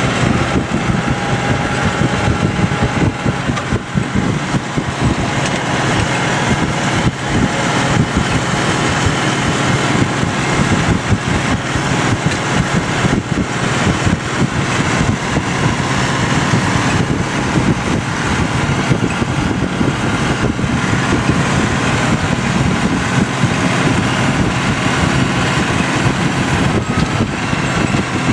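John Deere 7810 tractor's six-cylinder diesel engine running steadily under load, pulling a silage wagon full of grass.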